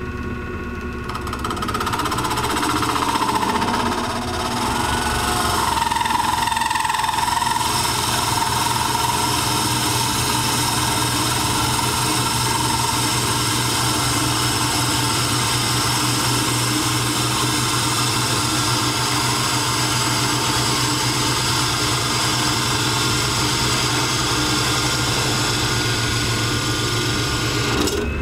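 Small lathe running steadily while a flat hand tool scrapes the spinning acrylic resin blank of a duck call, a motor hum under a wide hissing scrape. A wavering ringing tone rides on the scrape for the first several seconds, then the cut goes on evenly.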